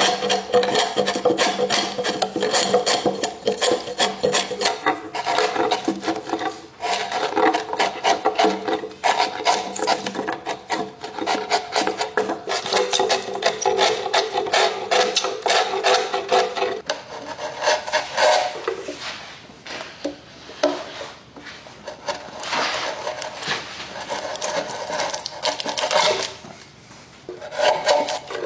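A hand tool working wood in fast back-and-forth strokes, dense and continuous for the first two-thirds, then slowing into separate strokes with short pauses between them.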